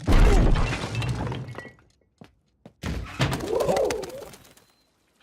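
Animated cartoon sound effects: a heavy thump with a low rumble that dies away, then after a short pause a second clatter with a brief wavering pitched call.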